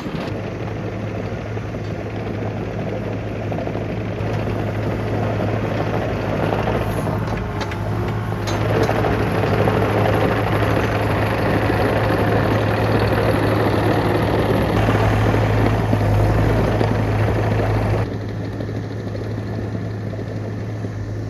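Yanmar ViO35-6A mini excavator's diesel engine running steadily. It grows louder, as if working under load, from about eight seconds in, then drops back abruptly a few seconds before the end.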